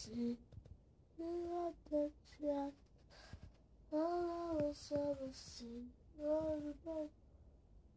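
A child singing a slow tune alone, in short phrases of held notes with pauses between them.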